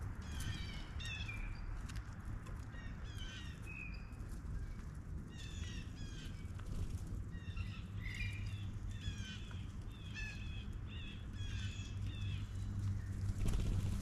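Blue jays calling: a long series of short, repeated calls, coming closer together in the second half, over a steady low hum.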